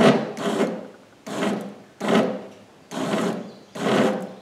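Razor Ground Force go-kart's electric motor grinding and rasping as it struggles to turn the stiff rear drive in short spurts, about one a second, each starting sharply and dying away. The stiffness is put down to crusty, corroded bearings from being stored outside.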